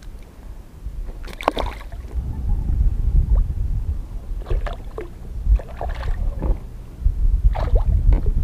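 Water splashing and knocking at the side of an inflatable rubber boat as a small zander is dropped back into the lake, in a few short separate splashes over a steady low rumble.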